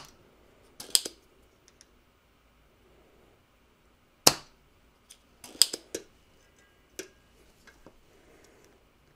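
Spring-loaded solder sucker (desoldering pump) clicking sharply as it is cocked and fired, sucking molten solder off a circuit-board joint under the soldering iron: a pair of clicks about a second in, a loud snap just past four seconds, a quick cluster around five and a half to six seconds, and another at seven.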